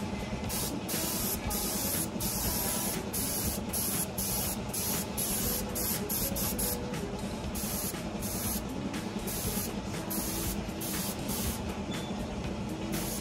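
Paint being sprayed: a loud hiss that keeps cutting off for split seconds and starting again, over a steady low hum.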